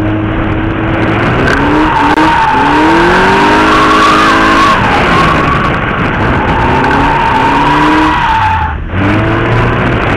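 Mazda MX-5 Miata's four-cylinder engine revving up and down while its tyres squeal through a long drift. There is a brief drop in engine and tyre sound about nine seconds in, and then both pick up again.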